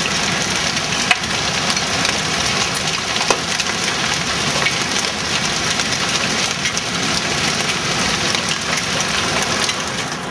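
Large hailstones, near golf-ball size, pelting down hard: a dense, steady rattle of impacts with sharper, louder cracks about a second in and again about three seconds in.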